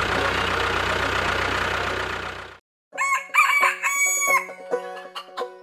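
A motor engine running steadily, fading out about two and a half seconds in. After a brief silence, a rooster crows.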